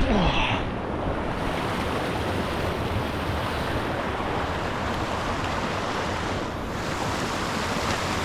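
Steady rush of a fast-flowing moorland stream, with wind buffeting the microphone.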